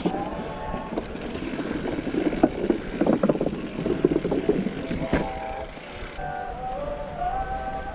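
Mountain bike riding a dirt singletrack trail: wind rush and the clatter of the bike over rough ground, heaviest in the middle. A buzzing tone shifts up and down in pitch throughout.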